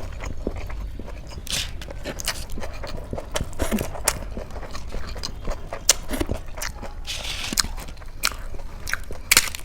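A person eating close to the microphone: wet chewing with frequent sharp mouth clicks and lip smacks, and a short crunch near the end.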